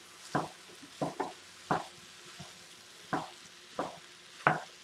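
Plastic spatula jabbing and scraping in a frying pan of raw ground beef and chopped green pepper, breaking the meat up for browning: about seven short strikes at uneven intervals, over a faint sizzle.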